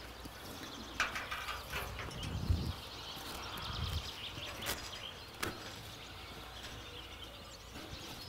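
Outdoor ambience with small birds chirping and a few sharp knocks.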